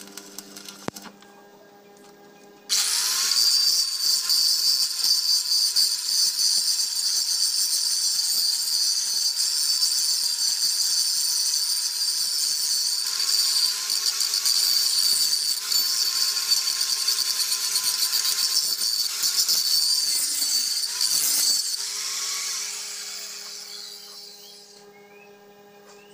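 Handheld angle grinder switched on about three seconds in, running steadily against the cast iron tractor rear axle with a high whine and hiss. It is switched off near the end and winds down over a few seconds.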